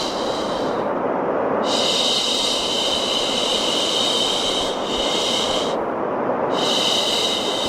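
Long 'shhh' shushes repeating over a steady white-noise hiss: one shush ends about a second in, the next runs to about six seconds, and another begins shortly after and carries on. The pairing of shushing and white noise is typical of a baby-soothing track.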